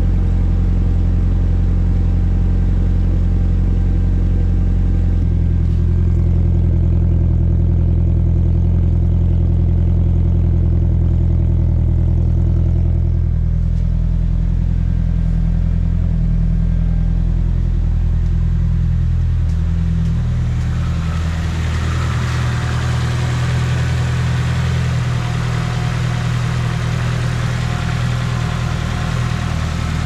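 Nissan SR20DET turbocharged four-cylinder idling steadily through a large single-tip aftermarket exhaust, with no revs. In the last third the engine's higher mechanical clatter becomes more prominent.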